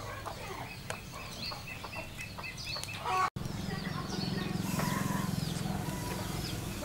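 Chickens clucking and small birds chirping. About halfway through, a low steady hum comes in beneath them and becomes the loudest sound.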